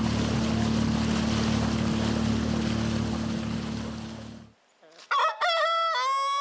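A boat's motor runs steadily with water rushing and splashing against the hull, then cuts off about four and a half seconds in. Half a second later a rooster crows: a broken, stepped opening, then a long held note.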